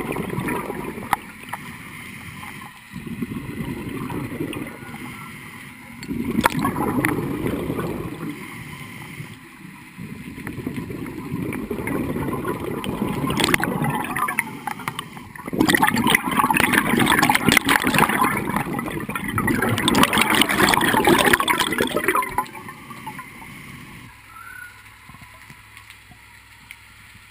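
Scuba diver's regulator heard underwater: repeated gurgling bursts of exhaled bubbles every few seconds. A longer, louder bubbling burst comes about halfway through, and it goes quieter near the end.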